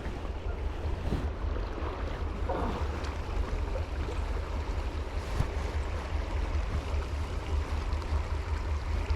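River water flowing steadily, with wind buffeting the microphone in a low rumble.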